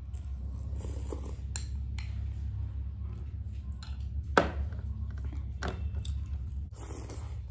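A few sharp clinks of eating utensils against a plate, the loudest about four and a half seconds in, over a steady low hum.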